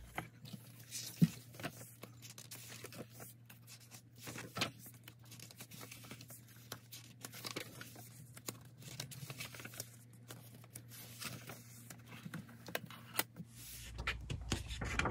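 Paper pages of a hardbound sketchbook journal being turned and handled: rustling and crinkling, with a few sharp taps, the loudest about a second in.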